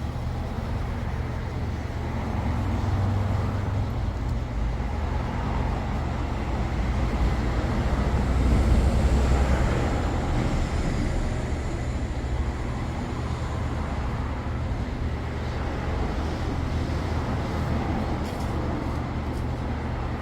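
Hyundai YF Sonata idling steadily with the air conditioning running while refrigerant is charged into the system. The low hum swells a little around the middle, then settles.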